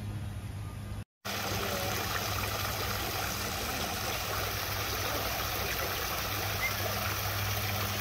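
Multi-jet ornamental fountain splashing into its round pool, a steady rush of falling water that starts after a brief break about a second in.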